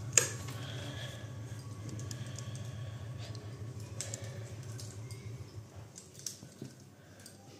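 Plastic clothes pegs clicking and rattling as they are handled in a bucket of washed clothes, with one sharp click just after the start. A low steady hum runs underneath and stops about six seconds in.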